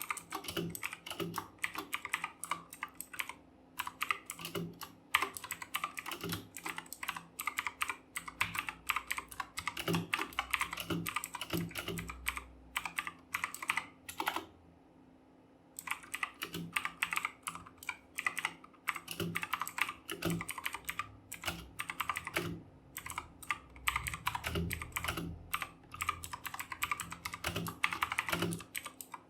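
Fast typing on a Redgear Chameleon mechanical keyboard with clicky Kailh Blue switches: a rapid, uneven stream of key clicks, breaking off for about a second and a half about halfway through.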